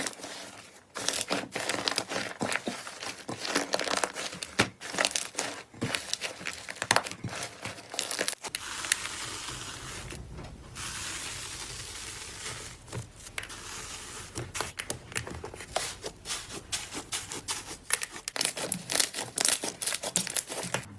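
Slime being squeezed and stretched by hand: a dense run of crackles and small pops, easing into a steadier hiss for a few seconds midway before the crackling picks up again.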